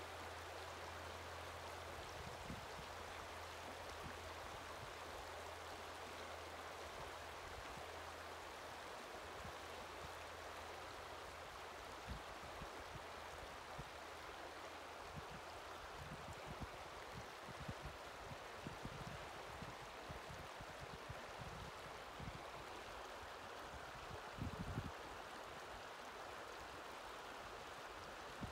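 Shallow river water running and babbling over rounded stones in a riffle, a steady rushing. A faint low hum sits under it for the first half, and scattered low thumps come in the second half, loudest a few seconds before the end.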